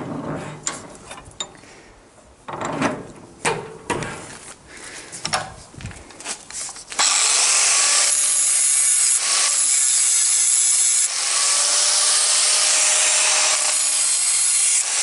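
Scattered knocks and clanks of steel rod being handled and clamped in a bench vise. About seven seconds in, an angle grinder starts grinding the steel rod with a loud, steady, hissing whine that dips briefly a few times.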